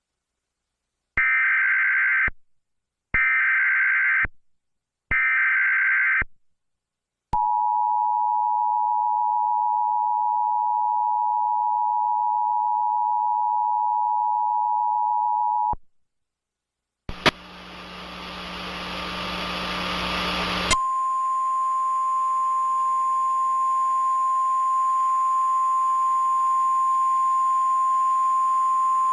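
Emergency Alert System alarm: three short bursts of screeching digital header data, each about a second long, then the two-tone attention signal held steady for about eight seconds. After a brief gap comes about four seconds of radio static with a low hum, and then the single steady NOAA Weather Radio warning tone begins, announcing a tornado warning.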